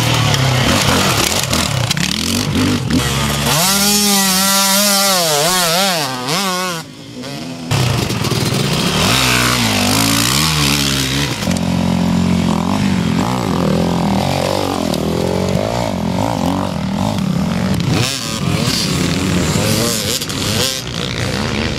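Enduro dirt-bike engines revving hard as bikes pass one after another, the engine pitch rising and falling with throttle and gear changes.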